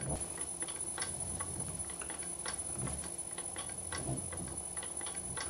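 Century-old bench lathe turning slowly on its V-belt pulley drive, its electric motor run at low speed from a frequency drive (VFD): a low hum from the motor's vibration, which is pronounced at this low speed, with light, irregular ticking throughout.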